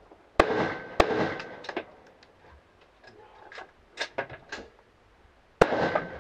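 AR-style rifle shots: two shots about half a second apart, each with a short echoing tail. Then a pause of about four seconds with a few light clicks as a failure to fire is dealt with, and a third shot near the end.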